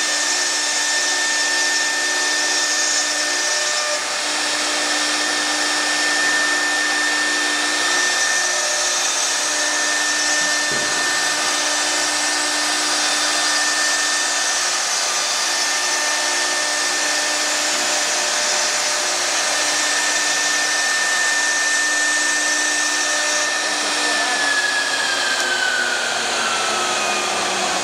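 CNC router running: a steady high spindle whine over a constant rushing hiss. For the last few seconds the whine falls steadily in pitch as the spindle slows.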